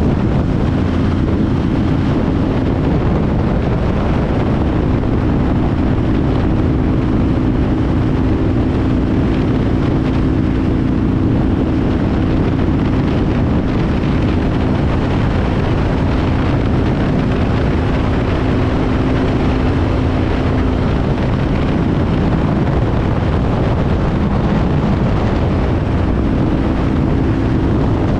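Motorcycle engine running steadily at cruising speed, buried in heavy wind rush on the microphone.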